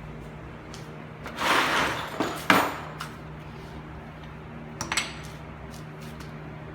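Metal car parts and tools being handled: a scrape about one and a half seconds in, a sharp clank a second later, and a short ringing metallic clink near five seconds.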